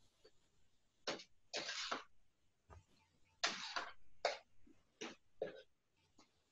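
Wooden spoon scraping and stirring a thick coconut and egg-white paste in a frying pan, heard as about seven short, irregular, faint strokes. The paste is being stirred constantly as it cooks, so the egg whites set gradually instead of forming an omelette.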